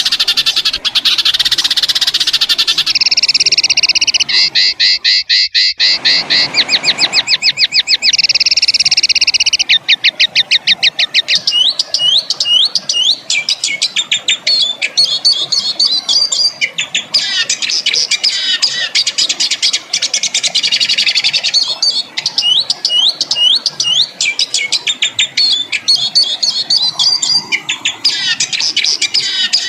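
Songbird calls spliced together one after another: dense buzzy trills, rapid rattling note series, and later runs of short upward-flicked whistled notes, with sudden cuts between segments. These are harsh 'tembakan' calls of a masteran recording for tutoring caged songbirds.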